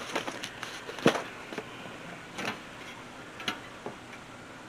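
A few light clicks and taps at uneven spacing, the sharpest about a second in, from things being handled and set down at close range.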